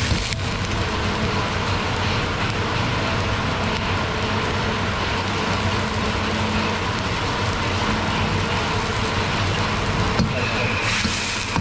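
Gas wok burner running with a steady roar under a wok of simmering manchurian gravy. A single sharp knock about ten seconds in, a ladle against the wok.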